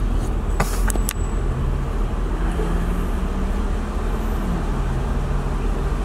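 Lexus SC430's V8, fitted with an Injen short ram intake, running at low speed as the car rolls along, heard from the driver's seat with the convertible top down: a steady low rumble with an engine hum that drops a little in pitch past the middle. Two short sharp clicks sound about a second in.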